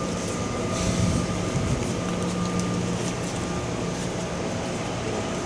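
Steady mechanical hum in a large hall: a low drone and a faint high whine over a wash of background noise, with a few faint ticks.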